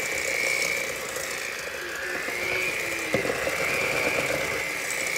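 Electric hand mixer running in a stainless steel bowl of stiffening cookie dough. Its motor whine wavers up and down in pitch, with a single knock about three seconds in.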